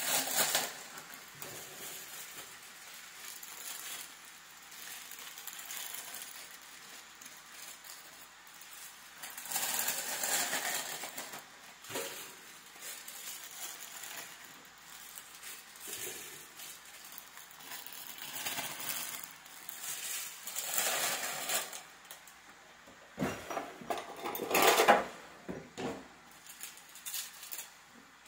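Plastic noodle packages crinkling and rustling in several bouts as fresh noodles are shaken out into a frying pan, with a few knocks among them, the loudest a few seconds before the end.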